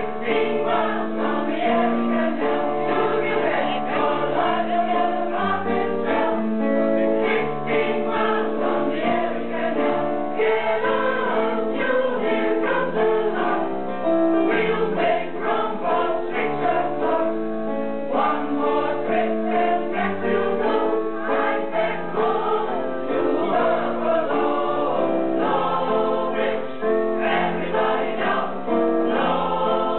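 Mixed choir of men and women singing a song together in harmony, with held chords.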